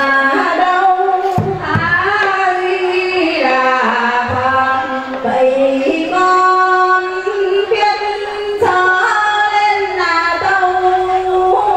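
A woman singing a slow devotional chant into a microphone, amplified, with long held notes that step up and down in pitch.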